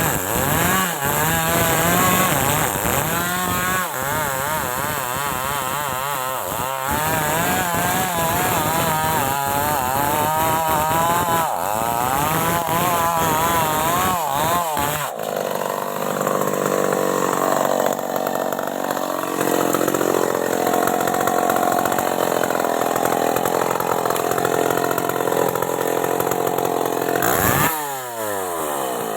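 Stihl MS 381 two-stroke chainsaw cutting through wood, its engine speed wavering up and down under load. Near the end the engine speed drops sharply.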